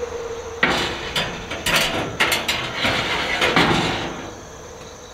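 Wire cooking racks clinking and scraping against the metal rack supports as they are slid into a Pit Boss vertical smoker, with a string of sharp knocks that die away after about three and a half seconds.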